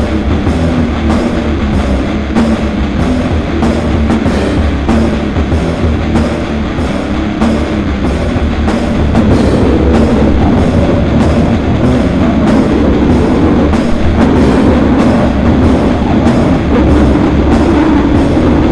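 Loud, heavy extreme metal in a slam, sludge and grind style: a dense wall of distorted guitar and heavy bass under rapid, pounding drum strikes.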